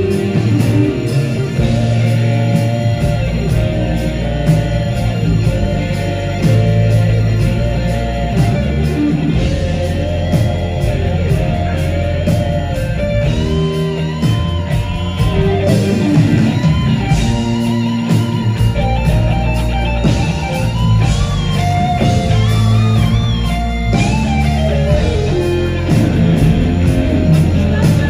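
Live rock band playing, with bass and drums under an electric guitar lead; from about halfway through, the lead plays bending, wavering notes.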